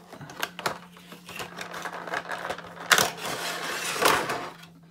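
A cardboard figure box being opened by hand and its clear plastic insert slid out: a run of clicks, scrapes and plastic crinkling, sharpest about three seconds in and again about a second later.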